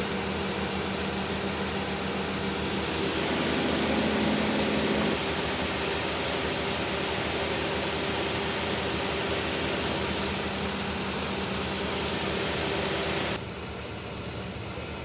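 Car engine idling steadily with a broad fan-like whoosh over it. A hum rises slightly in pitch and grows louder for about a second around four seconds in, and near the end the sound drops suddenly quieter.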